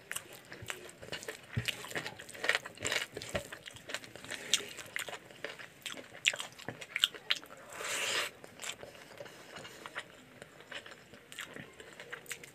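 Close-miked eating by hand: wet chewing, lip smacks and mouth clicks over a mouthful of rice and chicken curry, with fingers squishing rice through the gravy. A denser smacking cluster about two-thirds of the way in.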